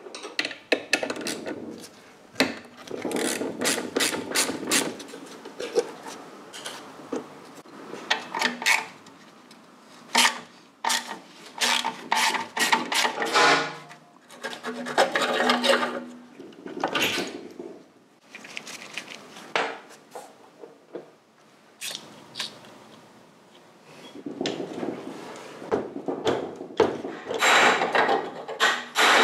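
Hand tools and metal parts at a motorcycle exhaust: irregular clinks, knocks, scraping and rubbing as the clamps, springs and silencer mounting are worked loose. The silencer is seized on its pipe.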